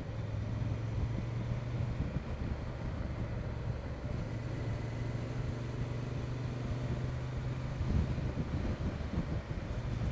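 Honda XL750 Transalp's parallel-twin engine running steadily at a light cruise of about 30 mph, with wind noise over it.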